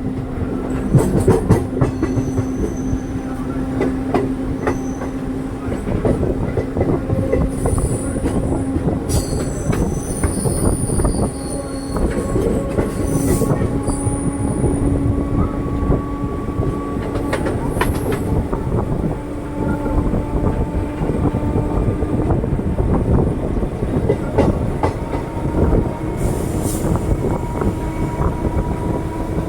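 DEMU diesel multiple-unit train running, heard on board: the wheels clatter over the rails with a steady drive hum that climbs slowly in pitch. Brief high wheel squeals come in about the middle.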